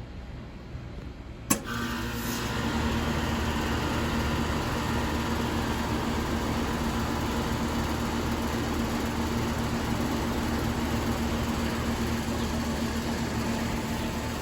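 1985 Comfortmaker Deluxe Energy Saver 1.5-ton heat pump starting up: a sharp click about a second and a half in, then the compressor and condenser fan come up to a steady, rattly run with a steady hum.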